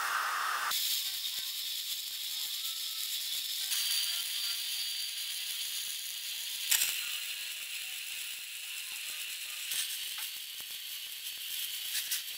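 Stick welding arc on steel crackling steadily: a dense, high-pitched sizzle with scattered sharp pops, starting about a second in.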